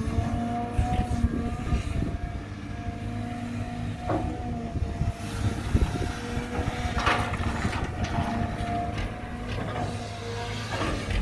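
Caterpillar 320GC hydraulic excavator at work: its diesel engine runs at a steady pitch under a continuous rattle and clatter, with a few louder metallic scrapes and clanks along the way.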